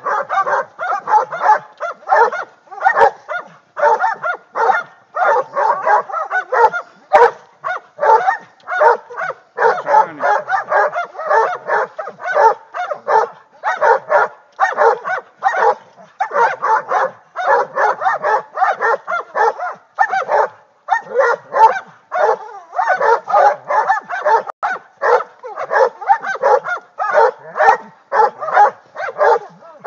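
A pack of Parker hog dogs baying a hog: continuous overlapping barks, several a second, with no letup.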